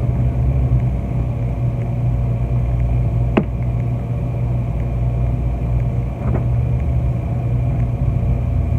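Steady low mechanical rumble and hum. A sharp click comes about a third of the way in and a fainter one later.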